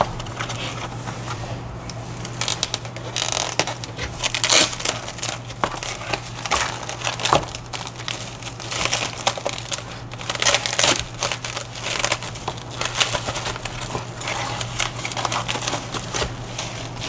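Plastic packaging crinkling and rustling in irregular bursts as it is handled and opened, over a steady low hum.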